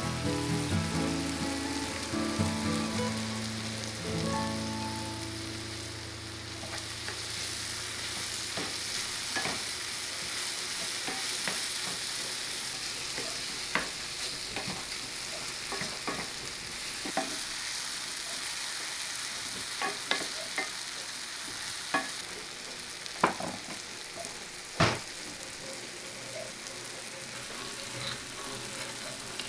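Apples sautéing in butter in a cast-iron skillet: a steady sizzle, with a spoon clicking and knocking against the pan every few seconds as it is stirred. Soft music fades out in the first few seconds.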